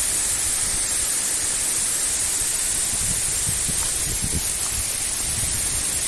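Waterfall in heavy flow, a steady rushing hiss of falling water, with faint irregular low thuds underneath.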